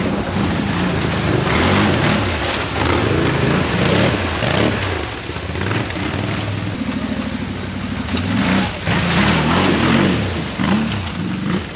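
ATV engines revving up and falling back several times as the quads ploughing through a shallow creek, with water splashing and spraying around the wheels.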